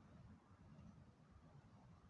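Near silence, with only a faint low rumble of background noise.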